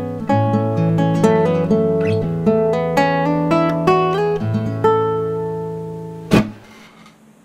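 Solo classical guitar fingerpicked, playing a closing phrase of single ringing notes over bass notes and settling on a long ringing note. Near the end a single sharp knock strikes the guitar, and the ringing stops soon after.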